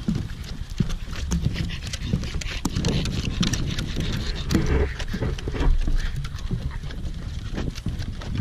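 Footsteps on a wooden boardwalk: many uneven, hollow knocks of shoes striking the planks, with low thuds underneath.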